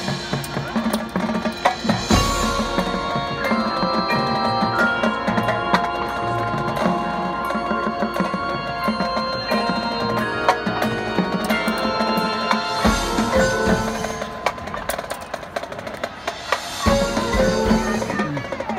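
Marching band percussion section playing: front-ensemble mallet keyboards ring out melodic lines over the drumline's bass drums, snare and tenor drums, with heavy low bass-drum hits about two seconds in and again near the end.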